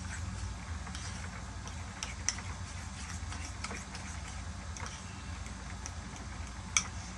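Spoon stirring a soft egg-yolk and mayonnaise filling in a plastic bowl: scattered light clicks and scrapes, the sharpest a little before the end, over a steady low hum.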